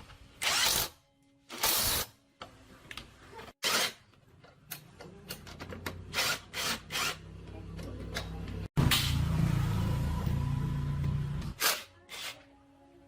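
Workshop power tool: several short, loud bursts of noise, then a small motor running, rising from about five seconds in, loudest for the last few seconds and stopping near the end.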